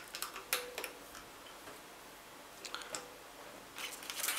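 Light clicks and taps from handling RHA SA950i headphones and their cable with its inline volume control and plug, coming in scattered little clusters near the start, around the middle and near the end.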